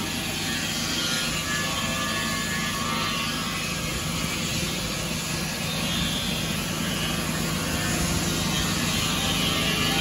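Mighty Mite portable circular sawmill sawing through a fir log: the saw head's engine runs steadily under load as the circular blade cuts, getting slightly louder near the end.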